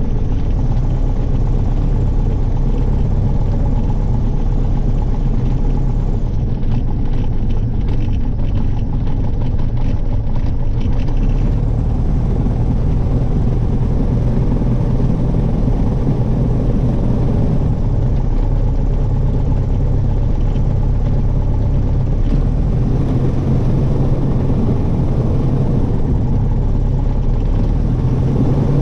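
Airplane's piston engine running steadily at an even speed.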